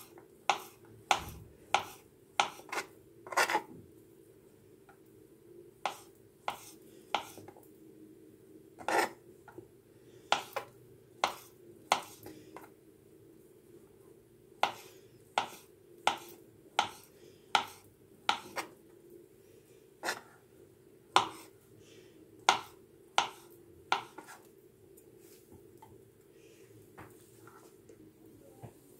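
Knife slicing a banana on a cutting board: sharp taps as the blade strikes the board, about two a second in runs broken by short pauses, stopping a few seconds before the end.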